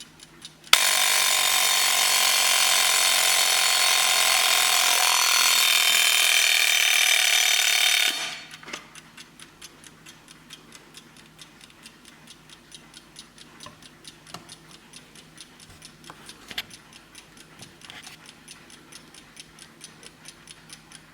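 Vintage Blessing mechanical alarm clock ringing its alarm bell loudly for about seven seconds, then cutting off abruptly. The movement then ticks on in a quick steady rhythm, with one sharper click about sixteen seconds in.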